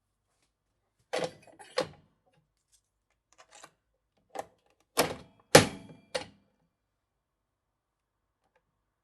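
Nespresso capsule coffee machine being handled: a series of hard plastic clicks and clunks, like its lever and capsule holder being opened and shut, about seven in all, with the loudest clunk about five and a half seconds in.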